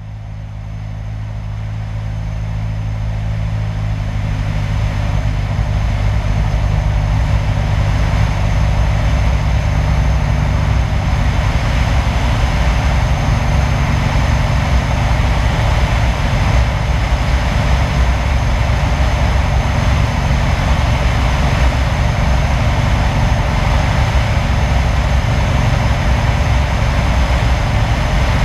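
Single-engine high-wing light airplane's piston engine and propeller running steadily with wind rush, heard from a camera mounted outside under the wing, on approach to land. The sound fades in over the first few seconds, then holds steady.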